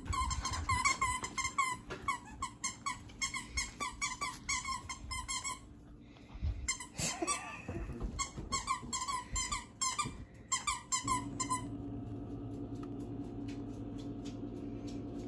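A dog chewing a squeaky toy: rapid squeaks, several a second, with a brief pause midway, stopping about eleven seconds in. A steady low hum follows.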